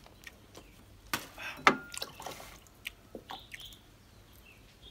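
A metal spoon clinks twice against a glass bowl, the second clink ringing briefly, then fresh milk is poured from a carton into the bowl with a soft liquid trickle.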